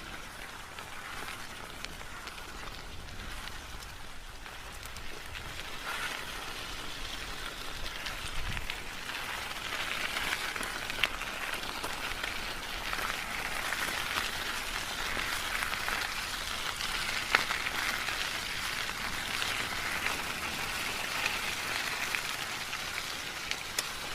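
Bicycle being ridden: a steady hiss of tyres rolling, with scattered small clicks and ticks. It grows a little louder about six to ten seconds in.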